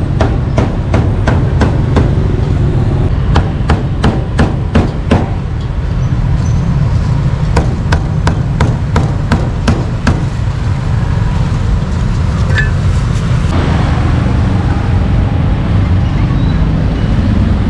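Meat cleaver chopping grilled beef on a thick round wooden chopping block: quick sharp chops, about three or four a second, for the first five seconds, then a few lighter ones. A steady low rumble of street traffic runs underneath.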